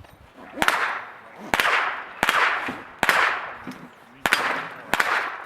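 .22 rimfire gunshots: six sharp cracks fired at an uneven pace, roughly a second apart, each trailing off in an echo.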